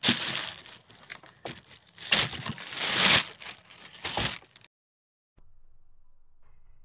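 Plastic bag rustling and crinkling in several loud bursts as harvested melons are handled in it. It cuts off suddenly about four and a half seconds in, and after a short gap only a faint low rumble remains.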